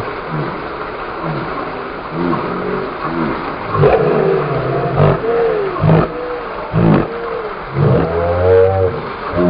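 A vehicle engine revving up and down over and over, each rev rising and falling in pitch. From about four seconds in, sharp knocks come roughly once a second.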